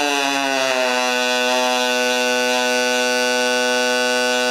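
Pulsed MIG welding arc on aluminum with 4043 wire, from an HTP Pro Pulse 220, giving a steady buzzing tone whose pitch sinks during the first second after the arc strikes and then holds. The arc is still too long, as the welder judges.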